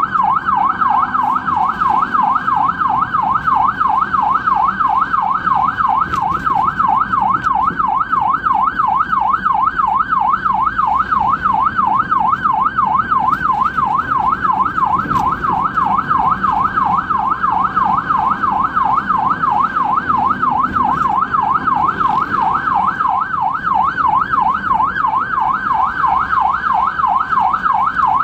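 Ambulance siren in a fast yelp, its pitch sweeping up and down about three times a second, loud and unbroken.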